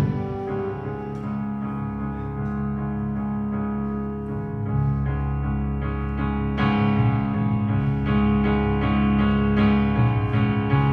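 Electric keyboard playing slow, held chords, the chord changing about every two seconds in the second half.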